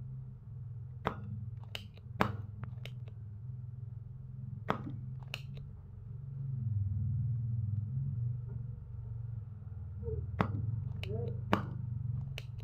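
Spring-loaded desoldering pump snapping as it is cocked and fired on the solder joints of a welding inverter's circuit board, sucking up molten solder to free the parts. The sharp snaps come in three bunches over a steady low hum.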